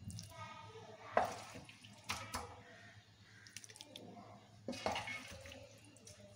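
A spoon scraping and clinking lightly against a metal pot as wet mutton masala is laid and spread over cooked rice for biryani, in a few short separate strokes.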